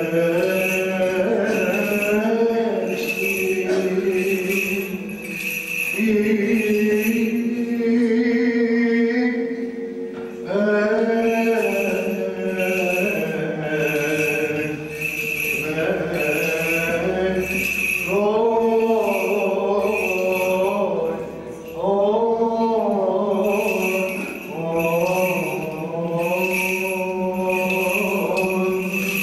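Byzantine chant, a melismatic vocal line sung over a held drone note (ison), with the small bells of a swung censer jingling in a steady rhythm about one and a half times a second. The bells drop out briefly about a third of the way in.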